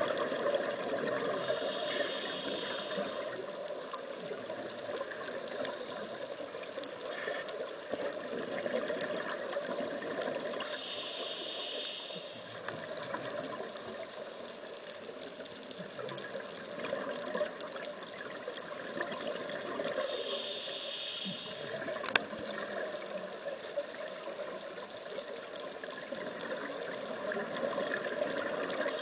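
Underwater noise heard through the camera's housing. About every nine seconds comes a high hiss lasting about a second and a half, in the even rhythm of a scuba diver breathing through a regulator. A single sharp click sounds about two-thirds of the way through.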